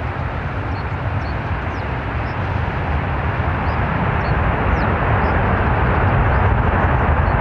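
Boeing 747 freighter's four jet engines during its landing rollout: a steady rushing roar that grows gradually louder from about three seconds in.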